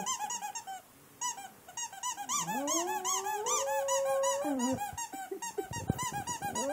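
A boxer howls along to a squeaky toy squeezed over and over, about five squeaks a second. The howl falls away at the start, breaks off briefly near one second in, then rises again and holds before dropping near the end.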